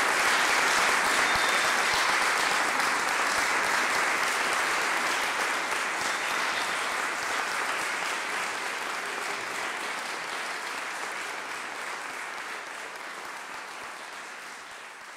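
Audience applauding, a dense steady clapping that grows steadily quieter through to the end.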